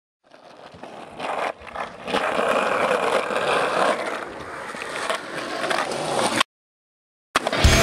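Skateboard wheels rolling on concrete, a steady rumble that builds over the first two seconds, with a few clicks and knocks from the board. It cuts off suddenly near the end.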